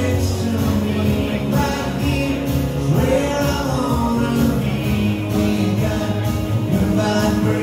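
A song sung by a live singer playing acoustic guitar, with a steady beat underneath.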